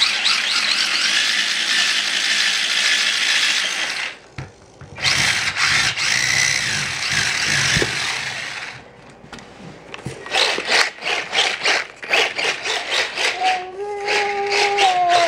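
A micro RC car's small electric motor and gears whine in long bursts as it spins on a smooth floor, with a short break about four seconds in. From about ten seconds in there is a run of sharp clicks and rattles, and near the end a pitched tone that falls.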